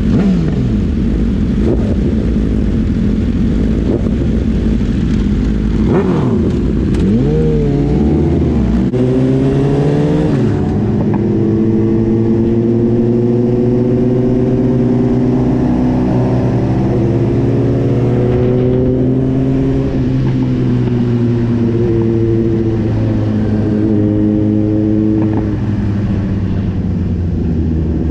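Suzuki GSX-R1000 sport bike's inline-four engine pulling away and accelerating, its pitch rising and dropping through several gear changes about six to ten seconds in, then running steadily at cruising speed, with wind noise on the microphone.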